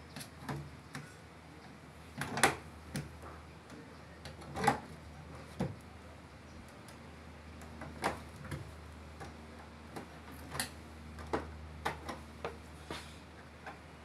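A screwdriver and hands working at the door and hinge of an LG front-loading washing machine: irregular clicks and knocks of metal and plastic, the two loudest about two and a half and four and a half seconds in.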